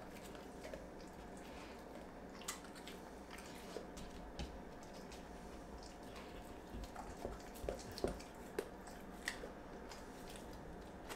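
A dog's wet mouth sounds: scattered smacking and licking clicks as it licks its lips and mouths raw food, coming in a quicker run about seven to nine seconds in.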